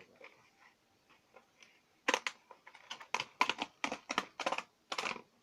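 A toy's retail packaging being opened by hand: a quick run of crackles and rips starting about two seconds in and lasting about three seconds.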